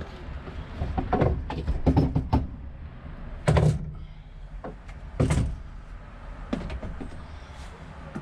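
Plastic Packout tool-box drawer being slid and knocked while power tools are lifted in and out of it: a run of clatters and knocks, then two heavy clunks about three and a half and five seconds in.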